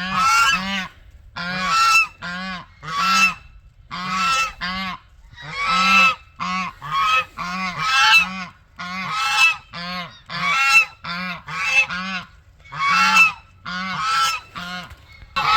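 Domestic geese honking over and over, one loud harsh call about every second, some in quick pairs.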